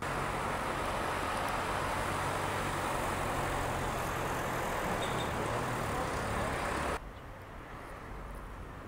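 Steady road-traffic noise with a low engine hum underneath. It stops suddenly about seven seconds in, leaving a much quieter background.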